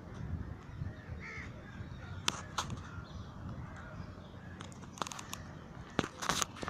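Wind rumble on a phone's microphone, with rubbing and knocking from the phone being handled, loudest about six seconds in. A bird calls faintly in the background.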